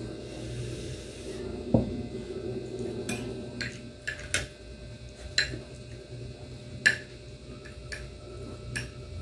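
Metal spoon and fork clinking and scraping against a ceramic dinner plate while eating, several sharp separate clinks with a dull knock about two seconds in.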